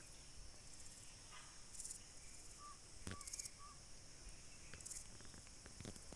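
Faint outdoor insect chorus: a steady high-pitched drone that swells in short pulses about every second and a half. Three short chirps come around the middle, and there is a sharp click about three seconds in.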